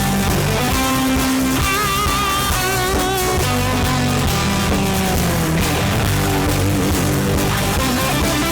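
Live rock band playing an instrumental passage: a lead guitar melody with vibrated, wavering notes over bass and drums.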